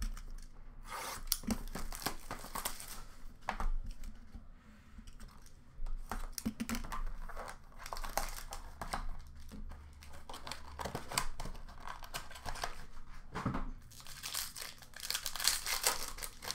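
Plastic wrap being torn and crinkled as a sealed hockey card box is opened by hand. The tearing comes in three bouts, about a second in, around the middle and near the end, with quieter handling between them.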